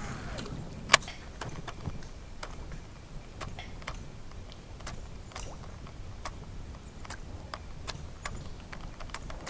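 Irregular sharp clicks and ticks, a few each second and one louder about a second in, over a low steady rumble.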